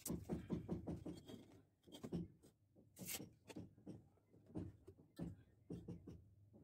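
Light, irregular knocks and rubbing as hands and a tape measure handle PVC drainage pipe fittings, with a brief scraping sound about three seconds in.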